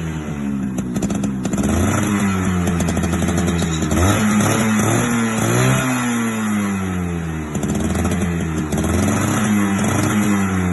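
Yamaha RX 100's single-cylinder two-stroke engine revving, its pitch repeatedly rising and falling every second or two, with a crackling edge to the exhaust.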